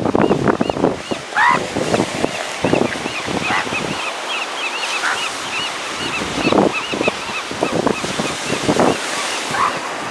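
Northern elephant seals calling at a breeding colony: irregular hoarse honking cries, several loud ones in the second half, over a steady wash of surf.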